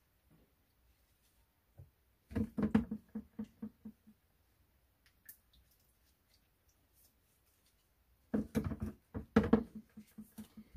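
Metal baking pan knocked and rattled as chicken wings are set into it: two bursts of short knocks, one about two seconds in and one near the end, each ringing briefly at a low pitch.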